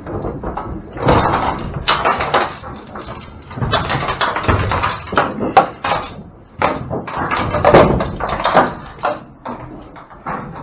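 Cattle moving in an aluminum livestock trailer: irregular clattering and banging as hooves strike the metal floor and bodies knock the perforated sides and compartment gates.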